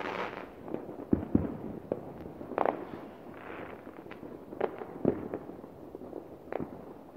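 Fireworks going off around the neighbourhood: a string of sharp bangs and pops at uneven intervals, some loud and some fainter, with crackling hiss from bursting shells between them.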